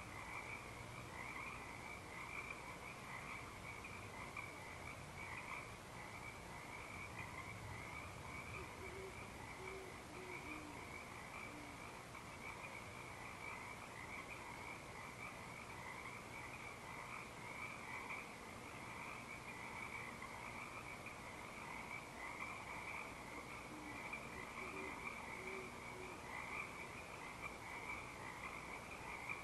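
Dense, continuous chorus of frogs calling. Two faint series of low hoots from great horned owls come through, about ten seconds in and again near the end.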